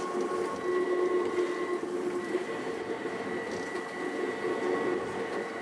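Uijeongbu Light Rail's rubber-tyred VAL light-metro train running at speed: a steady rolling rumble under a steady electric whine at several pitches.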